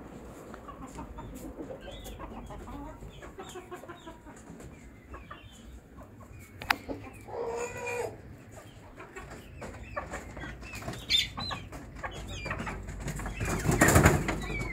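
Aseel chickens clucking with short, scattered calls, and one longer call about seven seconds in. Near the end comes a loud clatter as the wire-mesh coop is handled.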